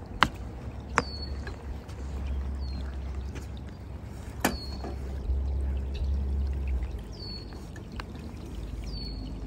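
A hooked trout splashing and thrashing at the surface as it is played toward a landing net, with a low wind rumble on the microphone. There are a few sharp knocks, loudest about a quarter second and a second in, and a short high chirp repeats every second or two.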